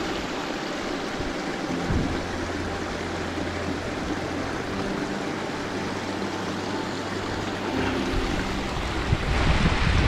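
Steady rush of flowing stream water, with low wind buffeting on the microphone near the end.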